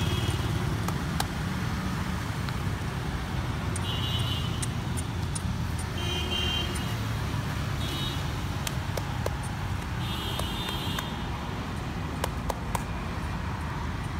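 Steady low rumble of motor traffic. Short high chirps come through about five times, each lasting up to about a second.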